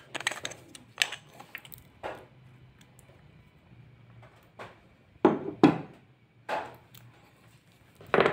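A few knocks and clacks of things being picked up and set down on a workbench, the loudest a pair of knocks about five seconds in, over a faint steady low hum.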